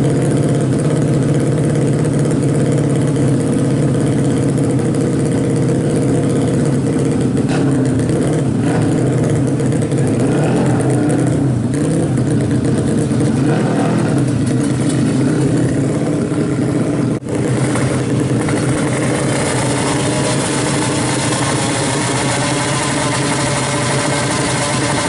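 Engine of a newly built 350cc Ninja drag-race motorcycle running during tuning, its pitch wavering up and down. There is a brief break about 17 seconds in, after which it runs at a steadier pitch.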